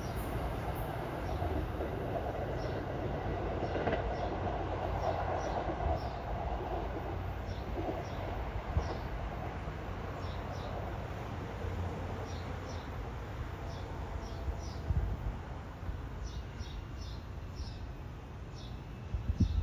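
NJ Transit Arrow III electric multiple-unit train running away down the track, its wheel and motor rumble fading as it recedes.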